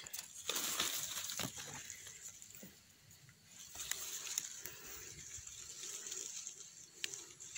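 Faint rustling and crackling of grass and dry leaf litter as someone moves through undergrowth, with a few sharper clicks, most in the first couple of seconds, over a steady high hiss.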